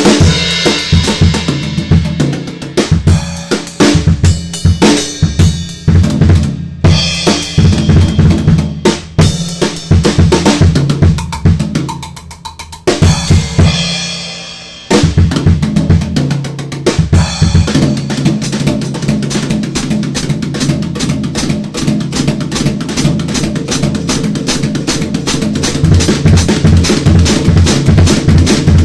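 Acoustic drum kit being played in a free jam with sticks: bass drum, snare and cymbals. About halfway through the playing drops out for a moment while the kit rings down, then a steady, fast groove starts up again.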